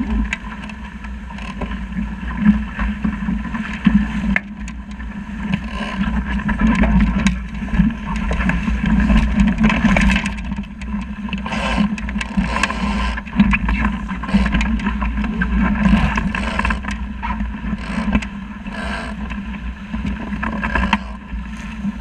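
Water rushing and splashing against a small sailing boat's hull as it sails fast through choppy water, with wind buffeting the microphone in a heavy low rumble. The sound surges and eases irregularly as the boat meets the waves.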